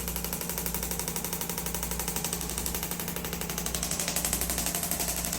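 Radial pressure wave (shockwave) therapy handpiece firing a rapid, even train of taps, many a second, into the shoulder muscles, over a steady low hum.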